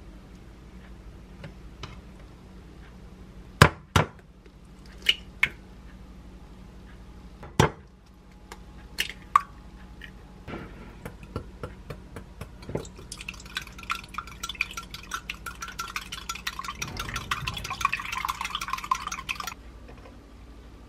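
A few sharp knocks as eggs are cracked into a glass mug, then two raw eggs beaten in the glass mug: a fast, steady clinking of a utensil against the glass that lasts about nine seconds and stops shortly before the end.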